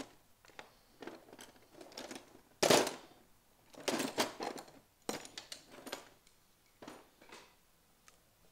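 Hand work on car parts: an irregular run of clicks, scrapes and rattles from tools and parts being handled, with one sharp knock a little under three seconds in and a busy patch of clatter about a second later.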